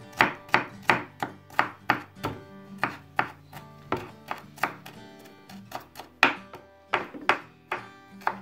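Kitchen knife chopping red onion finely on a wooden cutting board: a steady run of sharp knocks, about two to three a second, over background music.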